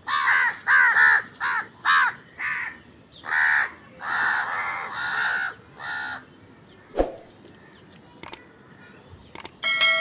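House crows cawing in a run of harsh calls, about ten in the first six seconds, some clipped and some drawn out, as the flock crowds around food scraps. A single sharp knock follows about a second later, and near the end a short electronic chime with steady tones begins.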